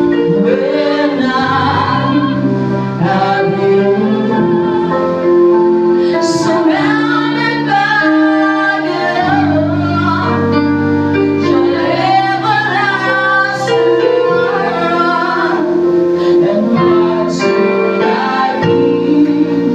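Gospel praise and worship song: female-led voices singing together over sustained keyboard-like chords and bass.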